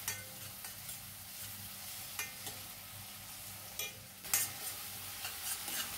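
Chopped onion, green chilli and tomato sizzling in hot oil in a stainless steel kadhai, while a steel spoon stirs them, scraping and clicking against the pan a few times.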